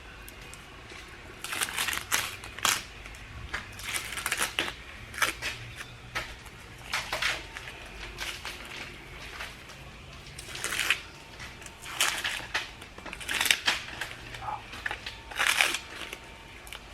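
Tape being ripped off a freshly spray-painted wheel: a long series of short, irregular tearing and crinkling strokes.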